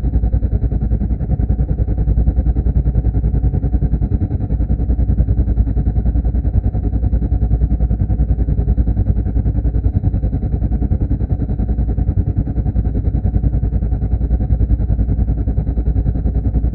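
Helicopter cabin interior: the engine heard muffled through the cabin, running steadily as a dense low drone with a fast flutter, and a faint high whine above it.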